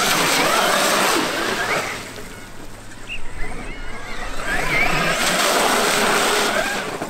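Traxxas X-Maxx brushless electric RC monster truck tearing through a large puddle, its tyres throwing up sheets of spray: two long passes of loud splashing with the motor's whine, a quieter lull between.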